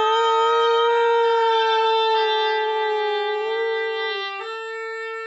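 Two oboes playing long held notes in a duet with a whippet howling along, one long howl drifting slowly down in pitch under the oboes. The notes change about two seconds in and again about four seconds in.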